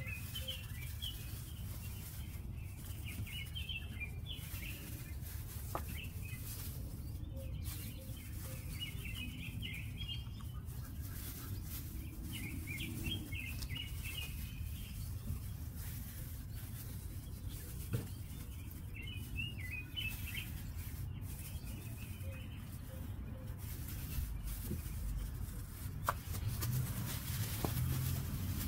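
Birds chirping in short bursts of song every few seconds over a low steady hum, with a few faint clicks.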